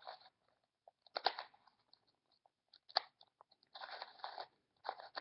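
Plastic Rubik's Cube layers being twisted by hand: short clicking, scraping turns in quick clusters, with a single sharp click about three seconds in.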